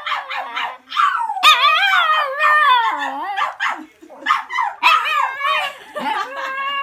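Puppy howling: short yips, then long wavering howls that rise and fall in pitch.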